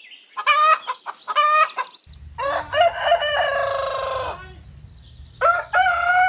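Domestic hen calling: two short calls in the first two seconds, then a longer drawn-out call, and near the end a long steady call that is still going as it closes.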